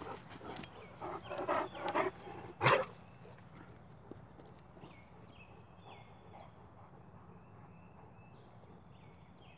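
Dogs growling in rough play as they wrestle: several short throaty growls over the first few seconds, the loudest about three seconds in. Then it goes quiet apart from faint outdoor background with a few short high chirps.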